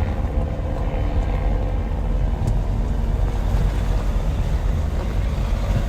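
Continuous rain ambience: an even hiss over a heavy, steady low rumble.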